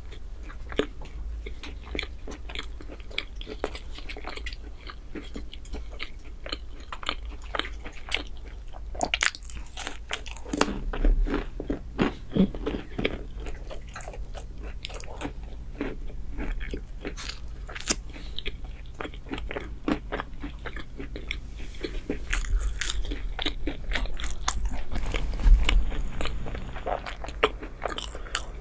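Close-miked eating sounds: a person biting and chewing chocolate bread, a dense run of small crisp clicks that is thickest about ten seconds in and again around twenty-five seconds.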